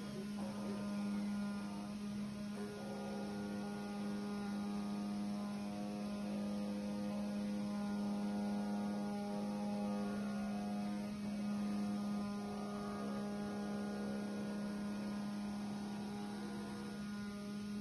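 CNC gasket cutting machine running as it cuts rubber gasket: a steady electric hum with a stack of fainter overtones above it.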